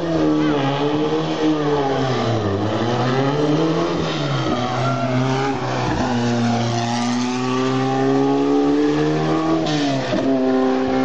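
Open-wheel single-seater race car engine at full throttle on a hillclimb, revving high and climbing in pitch, with its pitch dropping and climbing again three times as it changes gear and takes the bends.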